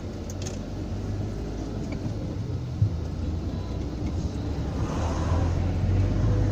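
A van driving on the road, heard from inside the cab: a steady engine and road rumble with one short knock near the middle. The rumble grows louder in the last couple of seconds.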